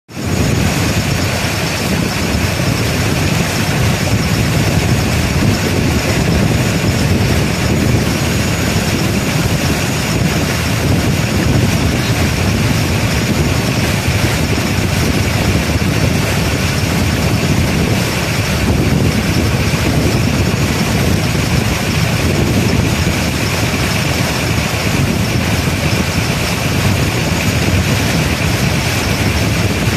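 Passenger boat's engine running steadily under way, with water rushing along the hull.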